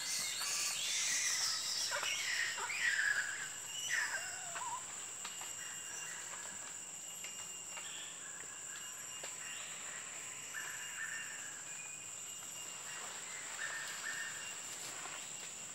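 Tropical forest ambience: a steady high-pitched insect drone throughout, with birds calling in sweeping, falling notes over the first few seconds and a couple of short buzzy calls later on.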